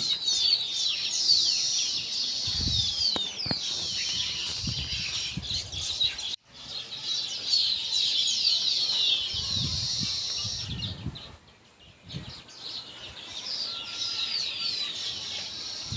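Many small birds chirping together, a dense chorus of short, quick, falling calls. It breaks off for an instant about six seconds in and fades out for about a second near twelve seconds, with a few low rumbles underneath.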